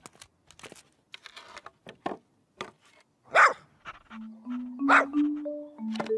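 A small dog barks three times, sharp single barks at roughly one-and-a-half-second intervals from about three seconds in. Before them come a few light knocks of wooden boards being handled; from about four seconds in, a plinking mallet-percussion melody of stepping notes plays under the barks.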